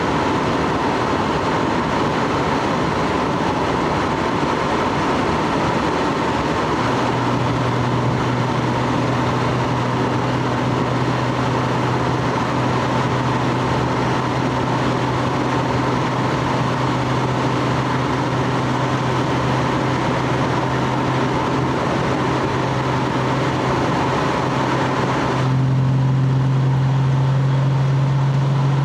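Stock Lexus GS300's 2JZ inline-six running steadily with road and exhaust noise, as in driving. About a quarter of the way in a low steady drone joins, and near the end the hiss drops away while the drone grows louder.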